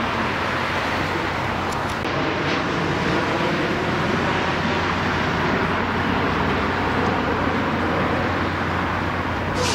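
Steady traffic noise from road vehicles passing, with a short sharp hiss near the end.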